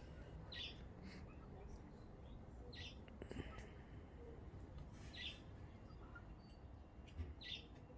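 Faint, short bird chirps, about five high notes spaced irregularly over several seconds.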